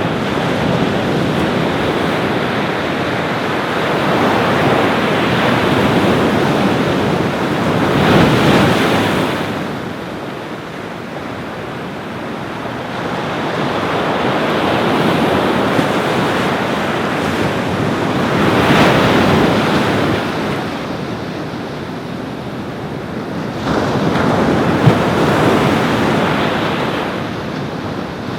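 Ocean waves breaking on a beach in a steady rushing wash, swelling louder as a wave crashes about every ten seconds. Wind buffets the microphone throughout.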